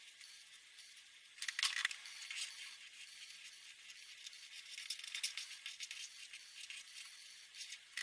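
Marker and brush pens scratching on paper: a thin, irregular crackly scratching that starts suddenly about a second and a half in, after a faint hiss.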